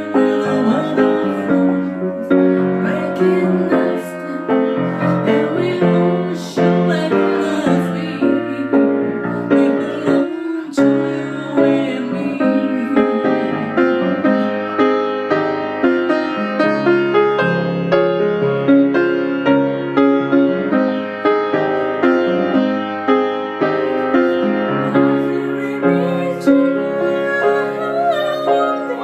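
Piano playing a gentle instrumental passage of chords and melody, with no singing made out.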